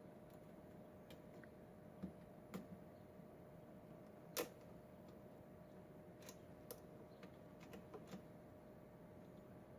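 Faint, scattered clicks of lock picks working inside a Schlage pin-tumbler lock, with one sharper click about four and a half seconds in.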